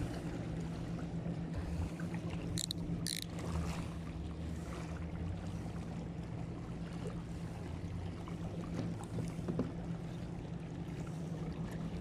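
A steady low motor hum over a noisy background, with two brief high-pitched squeaks about two and a half and three seconds in.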